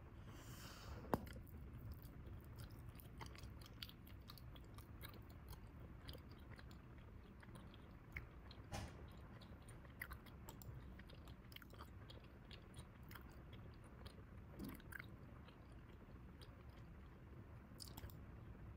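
Bubble gum being chewed quietly close to the microphone: soft wet smacks and small clicks, with one sharp snap about a second in.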